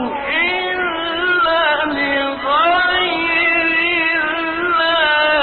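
A man chanting Quran recitation in a melodic style, in two phrases of long held, ornamented notes that waver and glide in pitch, with a short break between them about two seconds in.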